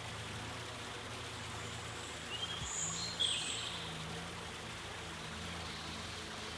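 Steady outdoor background hiss, with a small bird's brief high-pitched call a little over two seconds in: a short rising chirp followed by a couple of sharp high notes.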